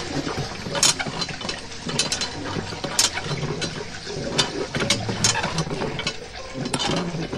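Miniature homemade hand water pump being worked by its straw lever, giving irregular plastic clicks and rattles.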